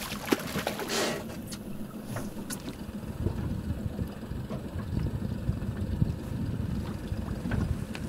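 Water splashing beside a small boat as a hooked small pollack is brought to the surface, about a second in, over a low steady rumble.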